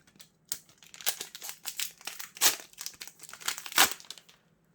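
Foil wrapper of a Yu-Gi-Oh booster pack crinkling as it is handled, in a dense run of irregular crackles starting about half a second in.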